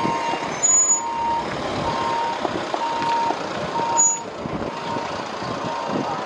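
A vehicle's reversing alarm beeping evenly, about one beep a second, over a noisy background.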